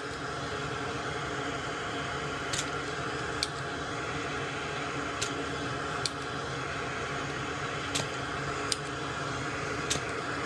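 Steady fan-like hum with about seven light, sharp clicks scattered through it, as of small tools handling the circuit board.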